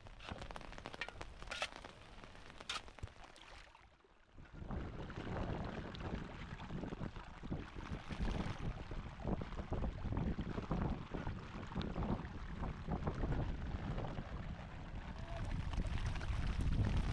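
Wind buffeting the microphone in stormy weather, gusty and uneven. It is fainter with a few scattered crackles at first, then much louder from about four seconds in.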